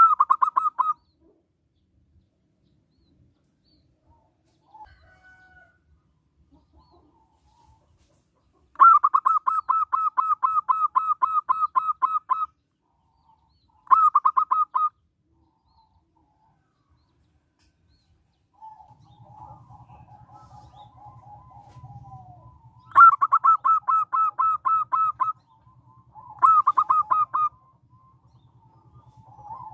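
Zebra dove (perkutut) singing: separate bursts of rapid staccato cooing notes with pauses between them. Softer, lower calls and a faint low hum come in about two-thirds of the way through.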